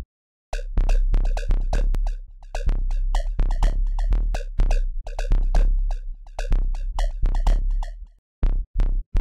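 Electronic music: a drum-machine beat with heavy bass and synthesizer notes. It breaks off about eight seconds in, leaving a few single hits.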